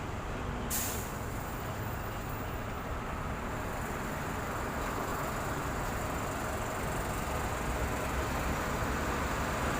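Road traffic: a steady rumble of vehicle engines and tyres that grows slightly louder toward the end, with a brief click less than a second in.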